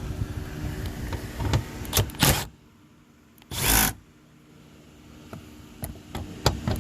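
Milwaukee 12-volt cordless impact driver running in reverse to back out 10 mm bolts from a truck door: a run of about two and a half seconds, then a short burst about a second later.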